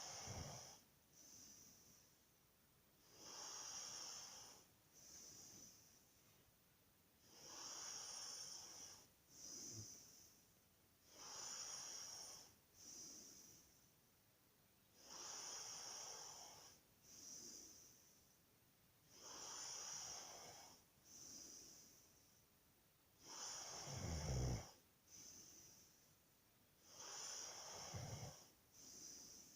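A person snoring in sleep, with a slow breath about every four seconds. Each breath is a longer airy snore followed by a shorter one. About 24 seconds in, one snore is louder and deeper.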